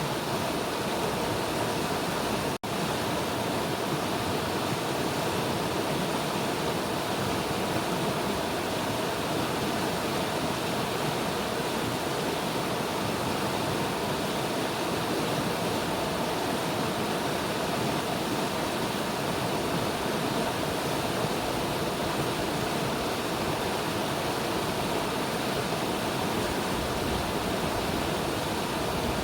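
River water rushing steadily, an even, unbroken roar of flowing water, with a momentary dropout in the sound about two and a half seconds in.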